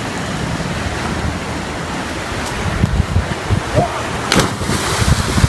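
Steady rush of water and wind, with wind buffeting the microphone in irregular low thumps during the second half and a brief sharp crack about four and a half seconds in.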